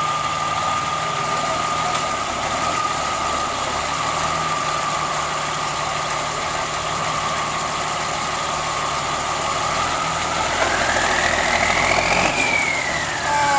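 M35 deuce-and-a-half army truck engine idling with a steady high whine; about ten seconds in it revs up, the whine rising in pitch, then drops back toward idle near the end.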